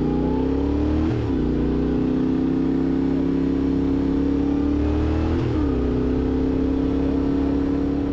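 Yamaha Ténéré 700's 689 cc parallel-twin engine pulling away under throttle. It rises in pitch, drops with an upshift about a second in, climbs again, and drops with a second upshift about five and a half seconds in before settling to a steady cruise.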